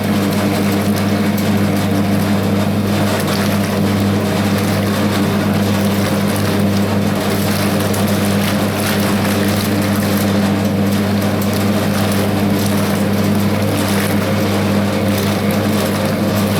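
Hoover 0321 wringer washing machine running steadily: an even motor hum with the wash water churning in the tub.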